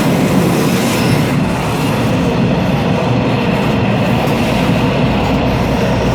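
Taiwan Railways local train running, heard from the gangway between two cars: a loud, steady rumble and rattle of the wheels and the car connection.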